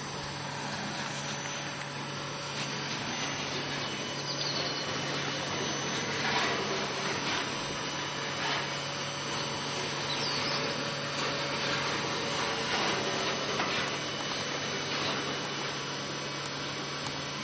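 Nieros 2000-litre vacuum meat tumbler running: a steady machine hum from its drive as the stainless-steel drum turns, with a few faint irregular knocks.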